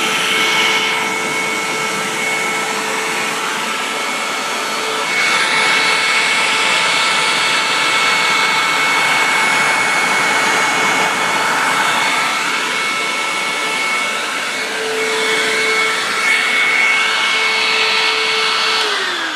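Hoover WindTunnel upright vacuum cleaner running with a steady whine. Near the end it is switched off and the motor's pitch starts to fall as it winds down.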